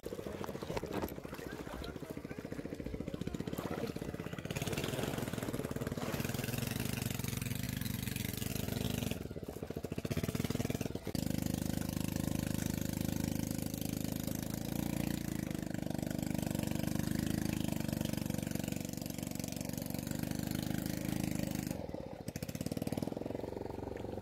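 A small engine running steadily at a low, even pitch, with a brief dip about ten seconds in.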